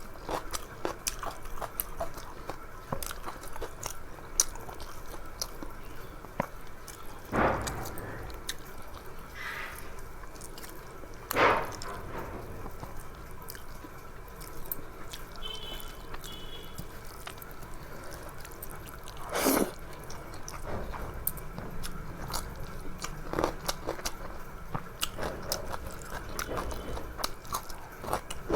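A person eating close to the microphone: steady chewing and biting of food with many small wet mouth clicks, and a few louder bites or slurps spread through.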